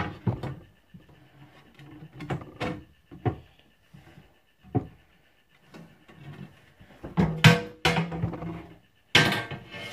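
A string of knocks, bumps and handling thumps from objects being picked up and moved close to the phone's microphone, the loudest clusters near the end.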